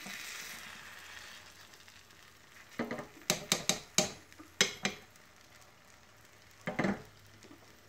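Egg whites frying softly in a nonstick pan, the sizzle fading after the first second or so. Then a quick run of about seven sharp taps of a fork against the pan, and one more tap near the end.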